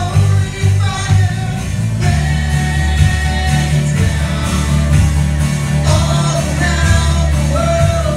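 Live worship band playing a song with singing: electric guitar and voices over a loud, heavy bass line, with the low notes switching to longer held ones about two seconds in.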